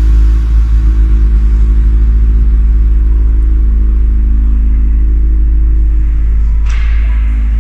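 Toyota AE86 Corolla's engine idling at standstill, a steady deep exhaust rumble.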